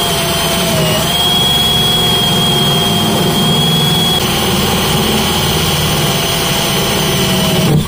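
Ryobi 18V cordless drill driving a Milwaukee hole saw through a boat's fiberglass deck, the motor whining at a steady pitch that sags briefly about a second in under load. The drill stops suddenly near the end as the saw gets through.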